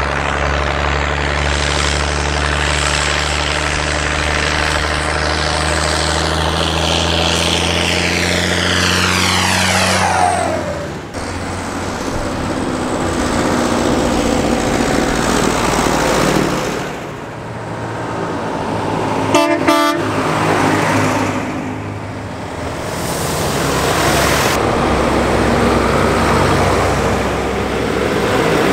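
Diesel farm tractors, among them an MB trac and a Fendt, driving past one after another with their engines running. A falling whine comes about a third of the way through, and a short horn toot about two-thirds through.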